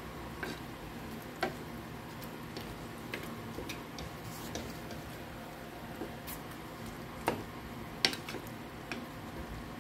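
Chicken in cream sauce heating in a pan over a raised gas flame, giving scattered irregular pops and ticks as it comes up to a simmer, with two louder pops late on. A steady low hum runs underneath.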